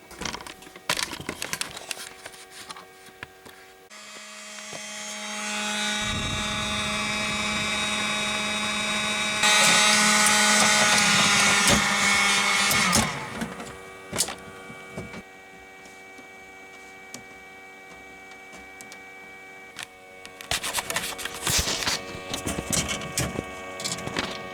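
A small machine's motor humming steadily, with many overtones. It starts about four seconds in, grows louder, and is loudest for a few seconds before dropping back. Scattered clicks and knocks come near the end.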